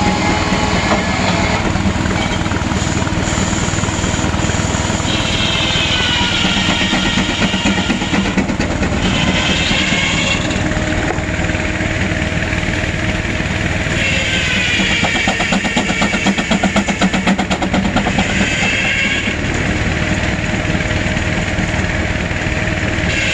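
Steam-driven circular sawmill cutting hardwood: the big circular saw's high whine slides down in pitch each time it takes load in the cut, about three cuts. Under it runs the steady rumble of the Advance-Rumely steam traction engine that drives the saw by a long flat belt.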